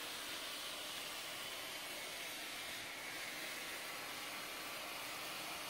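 Steady, even hiss of room noise with no distinct events.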